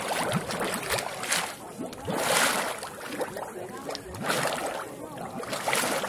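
Gas bubbling up through the wet grey mud of a mud volcano pool, gurgling and splattering in repeated surges every second or two.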